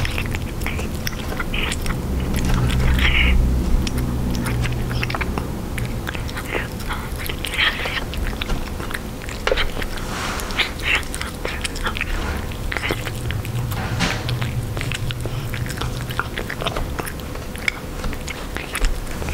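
Russian Blue cat eating soft canned pâté close up: wet chewing, smacking and mouth clicks, quick and irregular.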